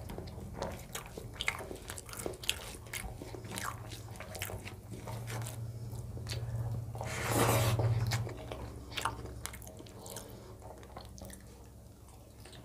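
Close-miked eating by hand: fingers mixing rice with chicken gravy on a plate, and wet chewing with lip smacks, heard as a run of small clicks. There is one louder burst of noise about seven seconds in.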